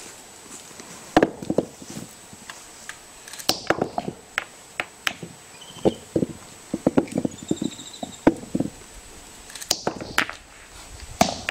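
A capuchin monkey pounding a palm nut with a heavy stone on a wooden log: repeated sharp knocks of stone on nut and wood, with scraping and dry-leaf rustling between strikes. A few faint bird chirps around the middle.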